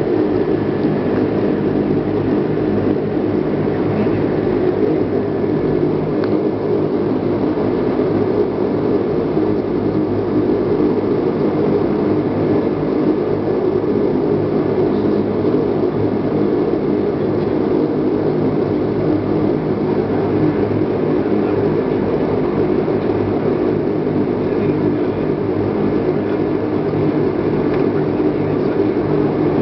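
Cabin noise of a Bombardier Dash-8 twin turboprop in flight or on the runway: the engines and propellers drone steadily, a hum of several steady low tones under a rushing hiss, with no change in power.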